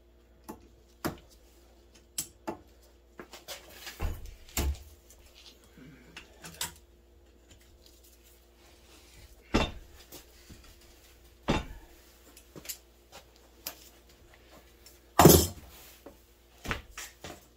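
Irregular metal clanks and knocks as a slider is worked off the rail of a 1980 Yamaha Enticer snowmobile's suspension skid with pliers. There is a louder clank near the end.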